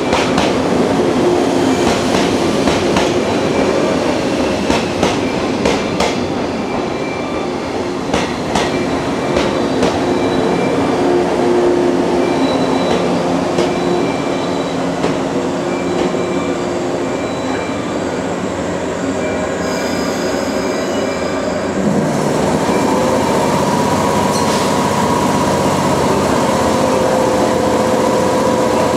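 Electric train running slowly into the station, wheels clicking over rail joints under a rumble, with faint thin squeals from the wheels or brakes. It comes to a stop about twenty seconds in, leaving a steady hum from the standing train.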